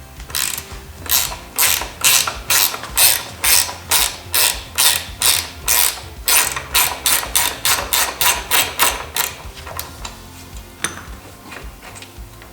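Ratchet wrench clicking in quick, even back-and-forth strokes, about three a second, as a bolt is undone; the strokes stop about nine seconds in.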